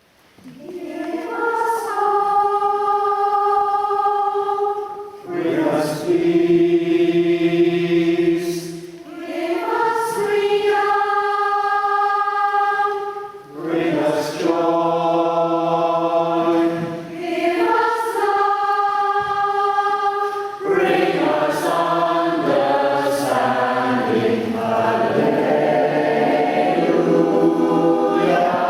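Community choir singing in harmony: long held chords in phrases of about four seconds with short breaks between them, the parts moving more busily from about twenty seconds in.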